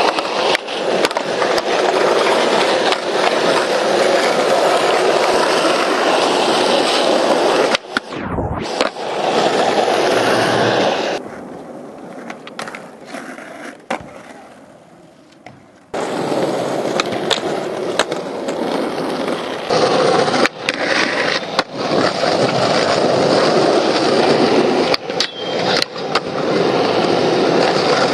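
Skateboard wheels rolling over the skatepark's asphalt, cut by sharp clacks and knocks as boards pop, hit ledges and land. The rolling drops away for a few seconds near the middle.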